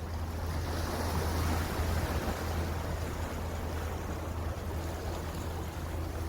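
Wind buffeting the microphone at sea, with water washing and a steady low hum underneath.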